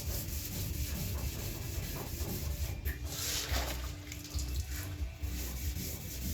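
Wet sanding of automotive clear coat by hand with 2000-grit sandpaper and soapy water: steady back-and-forth rubbing strokes, with a brief hiss about three seconds in.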